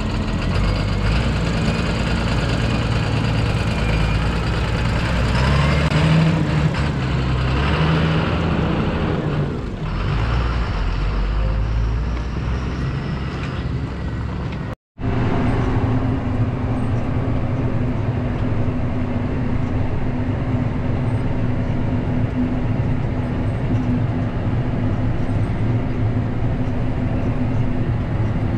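Tractor engine running steadily under load, its note shifting over the first half. There is a brief dropout about halfway, after which it carries on as a steadier drone.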